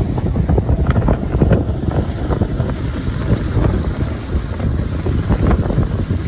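Wind buffeting the microphone aboard a motorboat under way, over a steady low rumble of the boat and water.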